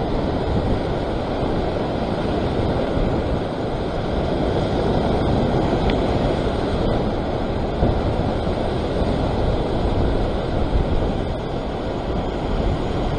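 Sea surf churning and washing around the rock ledge, a steady rush of white water, with wind rumbling on the microphone.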